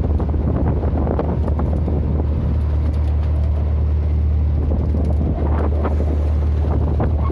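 Steady low drone of an engine running on board a wooden fishing boat, with scattered knocks and clatter from the deck.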